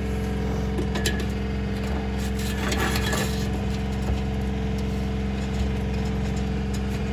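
An engine running steadily in the background, an even hum of several tones, with a few light knocks and clinks about a second in and again around three seconds as a spirit level is handled against a steel block-laying profile.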